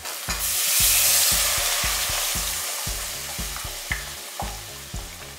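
Onions and red chilli powder sizzling in hot groundnut oil as they are stirred. The sizzle jumps loud about half a second in, then slowly dies down.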